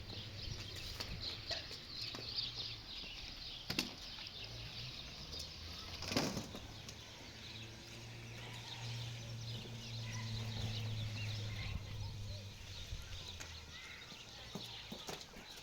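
Many faint bird chirps over a low steady hum, with a sharp knock about four seconds in and a louder one about six seconds in.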